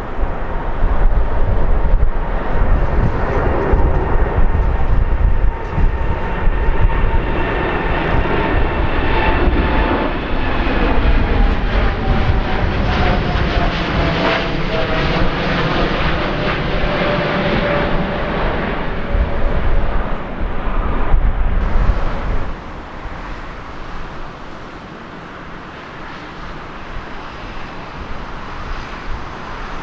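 Boeing 787 jet airliner climbing out after takeoff at full thrust: loud jet engine noise with whining tones that fall in pitch as the aircraft passes close by. About three-quarters of the way through, the level drops sharply to a quieter, steady distant jet noise.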